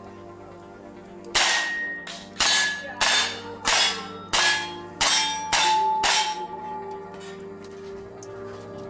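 Revolver fired eight times in a quick string, roughly one shot every 0.6 seconds, with several shots followed by the short ring of a struck steel plate target.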